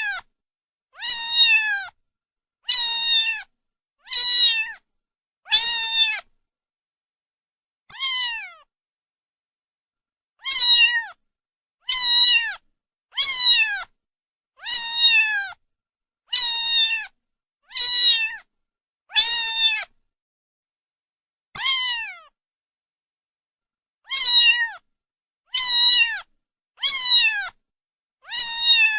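A cat meowing over and over, about seventeen short meows of much the same shape, each dropping in pitch at the end, roughly one every second or so with a few longer pauses.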